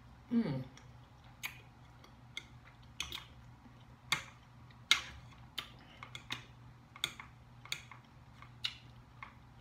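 Eating sounds: a short falling 'mmm' hum about half a second in, then sharp clicks roughly once a second as a metal fork picks at green beans in a divided plastic tray, with chewing.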